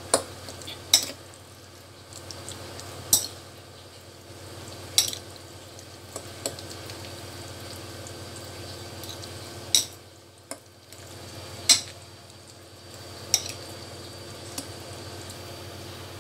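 Utensil stirring a wet mixture of corned beef, corn and egg in a ceramic bowl, clinking sharply against the bowl about every one to two seconds, with soft squelching of the mixture between the clinks.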